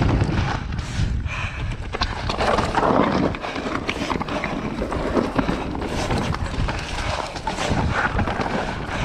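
Mountain bike rolling fast down a loose, rocky trail: tyres crunching over stones, with a constant irregular clatter of small knocks and rattles from the bike as it hits the rocks.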